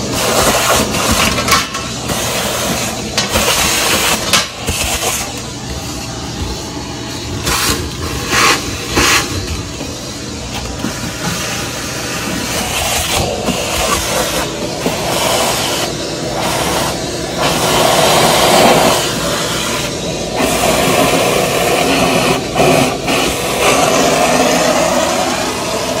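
Shop vacuum running steadily as its hose sucks standing water and residue out of a refrigerated produce case's drain pan, with irregular knocks as the nozzle moves along the pan.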